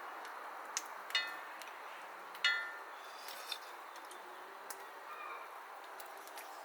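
Light clinks of tableware. Two ringing strikes come about a second and two and a half seconds in, the second the louder, with smaller ticks between and after.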